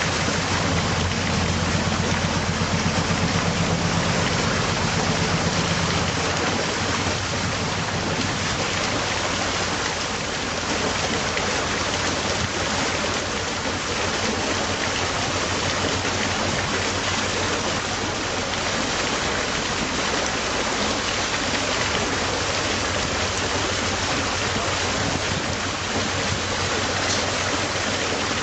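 Steady rush of water in a canal lock. For the first six seconds or so, a narrowboat's engine runs low underneath it, then fades.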